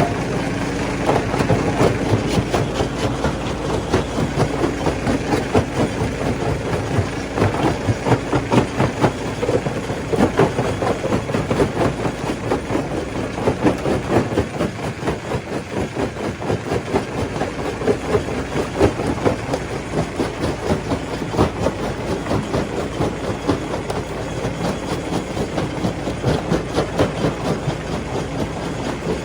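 Stone crusher running and breaking rock: a continuous, dense clatter of cracking and knocking stones over the steady hum of the machine.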